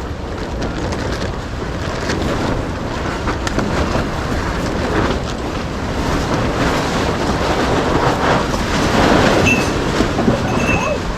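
Strong gusty wind buffeting the microphone, swelling louder near the end.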